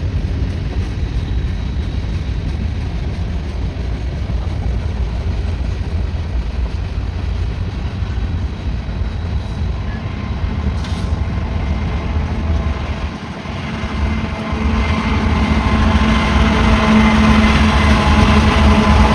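Freight train on the move: a steady low rumble of rolling cars. After a brief dip about two-thirds of the way through, the hum of approaching diesel locomotives grows louder, holding several steady tones.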